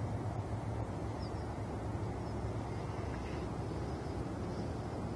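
Outdoor street ambience: a steady low hum under an even background of noise.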